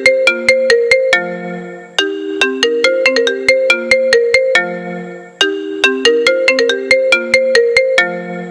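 Apple iPhone ringtone playing: a quick melodic phrase of short, struck-sounding pitched notes that repeats about every three and a half seconds.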